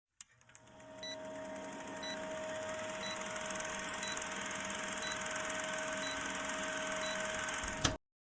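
Steady electronic hum and hiss with a short, high beep about once a second, cutting off suddenly near the end.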